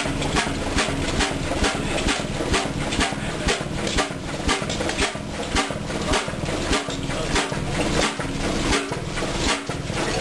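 A 1924 Chicago Pneumatic 50 HP diesel engine running steadily, with an even rhythm of about four knocks a second.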